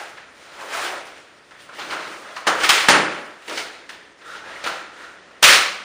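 Rustling and handling of a cloth bag being unpacked on a table, in irregular bursts, with louder rustles about halfway through and one short, loudest noise near the end.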